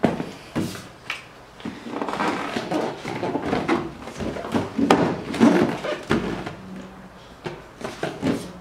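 Cardboard shoeboxes being handled and turned over, with a run of irregular knocks and scraping, rubbing sounds of cardboard against cardboard.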